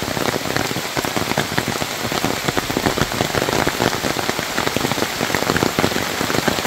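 Rain falling steadily, a dense, even crackle of many small drops.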